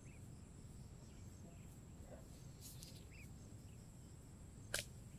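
Faint outdoor ambience: a steady thin insect tone and a few soft bird chirps over a low rumble, with one sharp click near the end.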